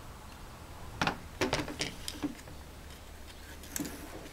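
A handful of light, separate clicks and knocks from handling, clustered in the middle and once more near the end, over a low steady hum.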